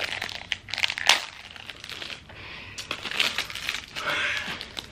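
Plastic candy packaging crinkling and crackling as it is torn and peeled open by hand, in irregular sharp crackles, the loudest about a second in.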